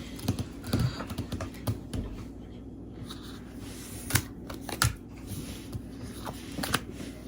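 Playing cards being handled and laid down on a table: a quick run of light taps and clicks over the first two seconds, then a few separate, sharper taps, the loudest two near the middle.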